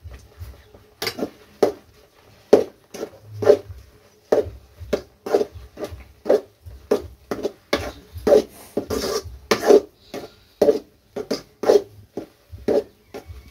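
Perforated steel skimmer scraping and knocking against a steel kadai as thick semolina upma is stirred, about two strokes a second, starting about a second in.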